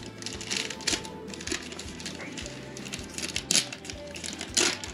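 Plastic wrapper of a Panini Prizm football cello pack crinkling and tearing as it is picked open by hand, in short irregular crackles.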